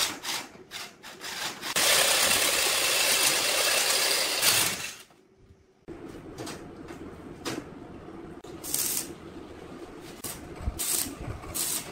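Cordless drill boring through a thin-walled steel square tube: the bit grinds in short rhythmic strokes for the first second or so, then runs steadily and loudly for about three seconds. After a break of a second, bent steel tubes are handled against a steel frame with light knocks and scraping.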